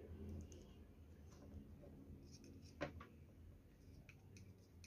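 Near silence: room tone with a few faint clicks and taps from the soldering irons being handled. The sharpest tap comes a little over halfway through.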